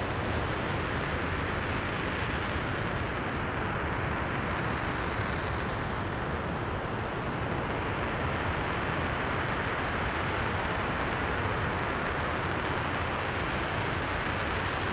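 RS-25 liquid-hydrogen/liquid-oxygen rocket engine running steadily during a static hot-fire test: a continuous, even rushing noise that does not rise or fall.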